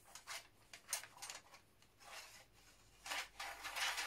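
About half a dozen short, irregular scraping strokes of metal rubbing on metal as a rod is worked along the Chassepot rifle's barrel and barrel band.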